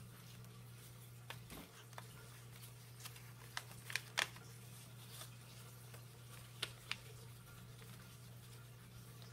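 A sheet of thin printer paper folded and creased by hand into an origami frog: faint scattered crinkles and rustles, loudest a little after four seconds and twice near seven seconds, over a steady low hum.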